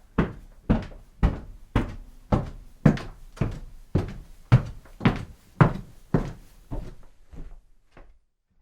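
Footsteps walking on a hard floor at a steady pace, about two steps a second, fading in the last second or so before stopping.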